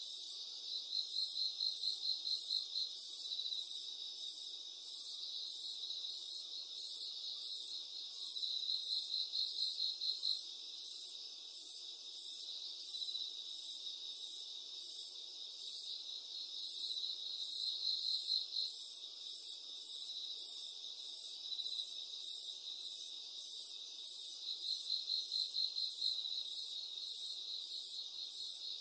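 Crickets chirping: a steady high trill, with louder runs of rapid chirps every several seconds.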